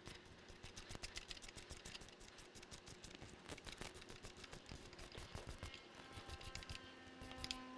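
Hand screwdriver with a Torx bit backing out a bolt from the engine side of a BMW K1600 motorcycle: faint, fast, even clicking as the tool is turned. Near the end a steady low hum comes in.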